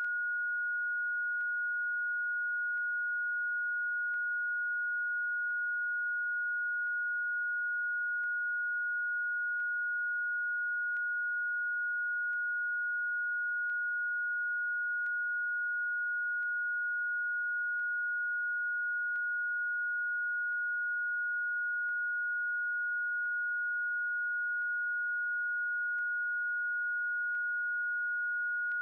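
A single steady, high-pitched electronic sine tone held without a break: a generated Rife frequency tone.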